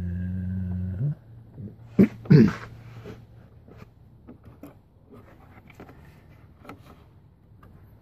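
Smith-Corona Super Correct XT electric typewriter switched on: a loud steady hum for about the first second, then a fainter steady hum under scattered light clicks as its controls are handled. A short, loud, voice-like sound about two seconds in.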